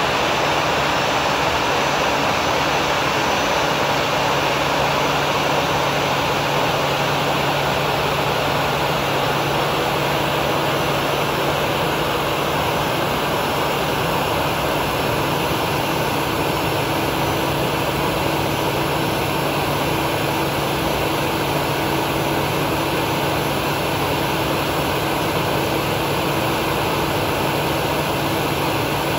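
Airbus A320's turbofan jet engines running at idle thrust as the airliner taxis close by: a steady jet noise with a low hum underneath and a faint high whine.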